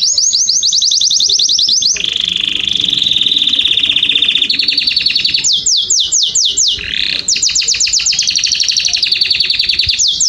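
Domestic canary singing a continuous song of quickly repeated phrases. It opens with a fast run of high notes sweeping down, moves to a steady trill, and about halfway through slows to wider downward sweeps about four a second before going back to fast trills.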